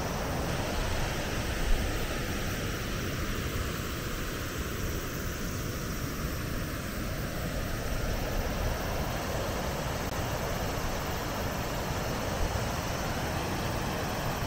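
Steady, even rush of water pouring through the opened gates of the Araizeki weir on the Okozu Diversion, opened because the river is running high.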